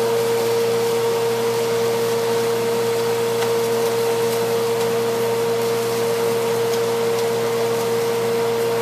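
Steady mechanical whir of a running motor: a constant mid-pitched drone over a low hum and an even hiss, unchanging throughout, with a few faint ticks.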